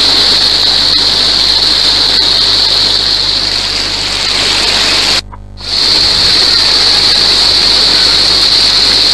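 Heavy tropical downpour pouring steadily onto a flooded street, a dense, even hiss of rain. The sound drops out briefly about five seconds in, then returns unchanged.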